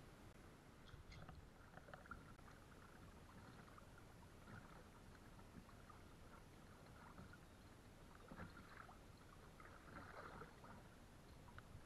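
Faint, irregular splashing of a kayak paddle dipping into calm water.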